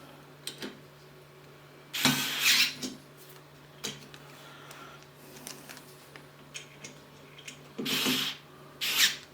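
A metal bracket with T-nuts being handled and slid into place against the 3D printer's aluminium extrusion frame. There are three short scrapes, about two seconds in and twice near the end, with light clicks and taps between them.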